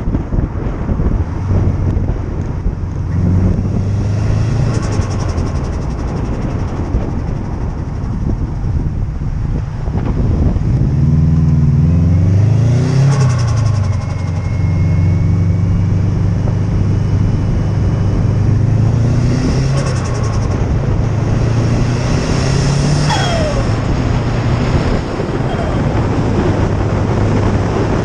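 Subaru Impreza WRX STi Type R's turbocharged flat-four engine running and revving, rising and falling in pitch. Several short bursts of turbo flutter (compressor surge as the throttle is lifted) come through it, and a falling turbo whistle is heard about two-thirds of the way in.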